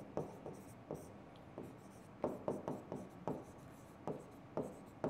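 A pen writing on an interactive touchscreen board: an irregular string of short, faint taps and light scratches as handwriting strokes are made.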